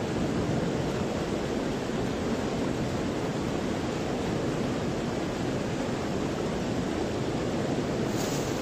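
Steady rushing of fast, churning river water running over the rapids.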